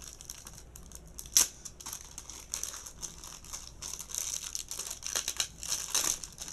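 Plastic packaging of a pack of photos crinkling and rustling as it is handled and opened, with a single sharp click about a second and a half in; the crinkling gets busier from about four seconds in.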